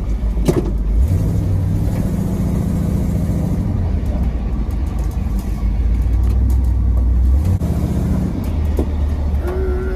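Engine of a 1969 Ford F-250, a rebuilt 360 V8, running steadily. Its pitch shifts about a second in and again after about seven and a half seconds.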